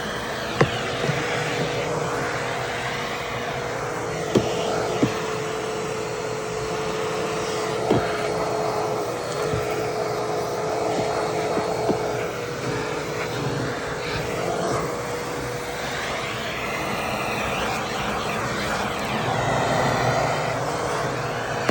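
Vacuum cleaner running with a steady motor whine, its nozzle knocking against the truck's interior trim several times. The whine sags slightly in pitch for a few seconds around the middle.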